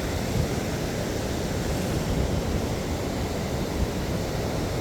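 Ocean surf washing onto the beach, a steady rushing hiss, with wind rumbling on the microphone.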